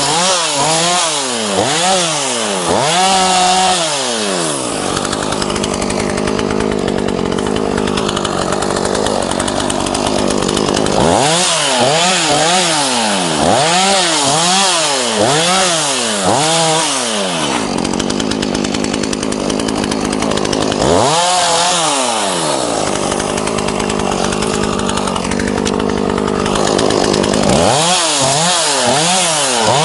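ZimAni 450 two-stroke chainsaw delimbing a felled dead spruce. The engine is revved up and down in quick repeated blips, about one a second, between longer steady stretches held at full throttle while the chain cuts through the branches.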